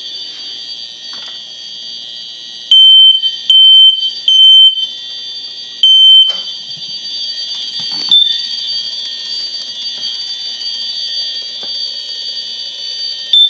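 Several smoke alarms sounding together with a steady, shrill tone. About three seconds in, one nearby alarm beeps very loudly three times in quick succession, then starts a new round after a short pause: the three-beep temporal evacuation pattern.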